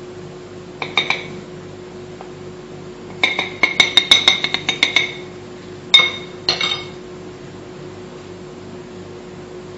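Metal spoon clinking against a plate and a stainless steel mixing bowl as the last of the sifted flour and cocoa powder is tapped off into the bowl. A pair of clinks comes about a second in, then a quick run of about a dozen clinks, then two more about six seconds in.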